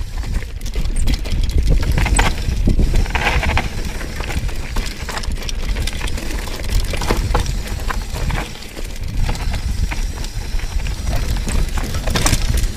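Mountain bike descending a rough dirt trail at speed: steady wind rumble on the microphone, with the tyres rolling over dirt and rocks and the bike rattling and knocking over bumps.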